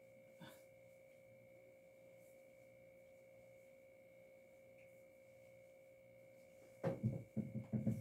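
A faint, steady electrical hum made of two constant tones, one mid-pitched and one high. About seven seconds in comes a cluster of short, louder low sounds.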